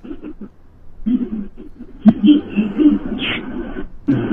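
A man chuckling, in short laughs from about a second in until near the end.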